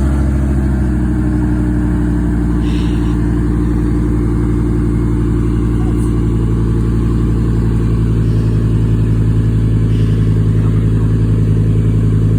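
Car engine running at a steady, loud idle just after starting, a low even rumble.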